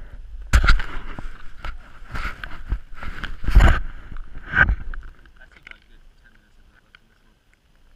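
Water sloshing and splashing with knocks against an action camera's housing as it is moved at the surface of a slushy ice-fishing hole, in irregular bursts for about five seconds before it settles down.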